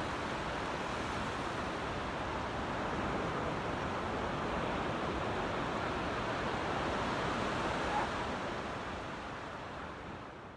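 Ocean surf: a steady rush of waves breaking on the shore, fading out over the last couple of seconds.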